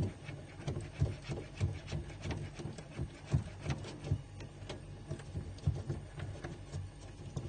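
A thin wire being pushed and worked down a refrigerator's drain outlet hole to clear the limescale blocking it. It makes irregular scraping and ticking clicks, a few a second, over a low steady hum.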